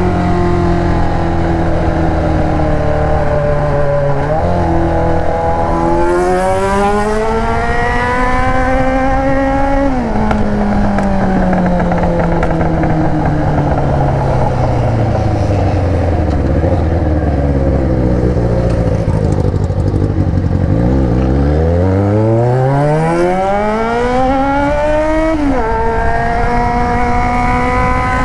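Yamaha XJ6 motorcycle's inline-four engine through an aftermarket Atalla exhaust, heard from the bike while riding. The revs climb for several seconds, fall away suddenly about ten seconds in and sink slowly as the bike rolls off. The revs then climb steeply again, drop at a shift near the end and settle to a steady higher note.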